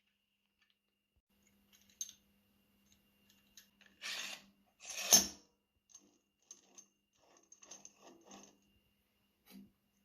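Small metal parts being handled: scattered clinks and light knocks, a short scrape about four seconds in, and a loud metallic clank just after five seconds.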